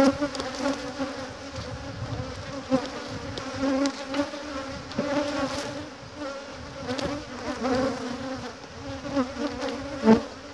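Honeybees buzzing around an open hive, a steady pitched hum that swells and fades as single bees fly close past. A short knock near the end.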